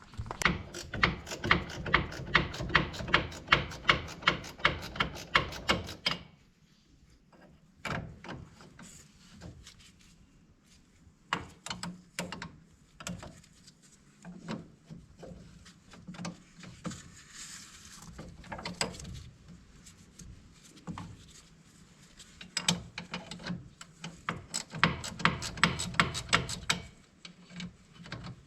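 Ratchet wrench clicking in quick, even runs, as when a nut is loosened: first for about six seconds, then again near the end. Scattered metal clanks and knocks come in between.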